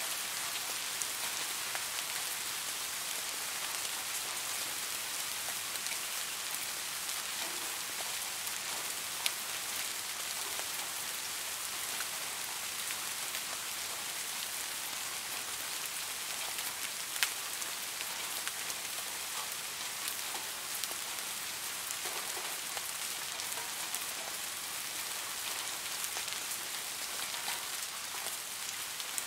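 Steady rain falling, an even hiss with scattered sharper drop taps, the clearest about nine and seventeen seconds in.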